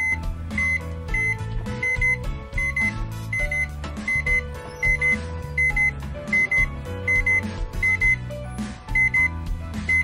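A microwave oven's touch-panel beeper giving short, high beeps, mostly in quick pairs about every three quarters of a second, as keys are pressed on the newly repaired panel, which registers each touch. Background music with a steady beat plays under it.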